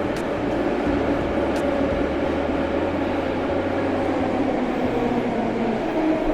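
St. Petersburg metro train running at the station platform: a steady rumble with a droning hum through it.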